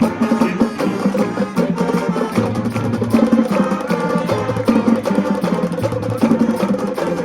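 High school marching band playing: brass and winds over a steady drumline beat, with a repeating low bass line.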